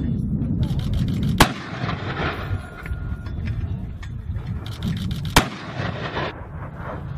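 Mortar firing two rounds about four seconds apart, each a single sharp bang that echoes off across the range, over a steady low rumble.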